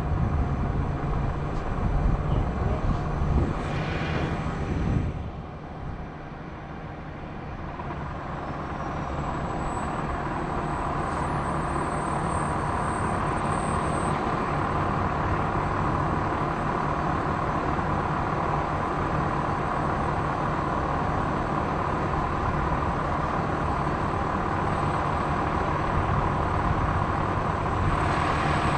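Crane's engine running steadily during the lift: it eases down about five seconds in, then builds back up and holds at a steady, louder level.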